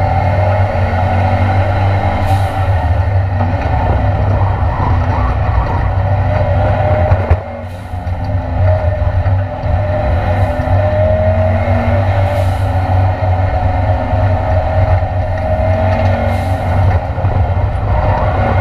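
Ford Escort Mk2 Cosworth race car's engine running hard under racing load, heard from inside the stripped cabin. The engine note drops briefly about seven seconds in as the throttle comes off, then picks up again.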